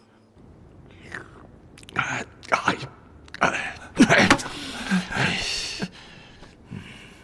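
A man coughing hard in a series of harsh fits, with a strained groan a little past the middle: the racking cough of an ailing man.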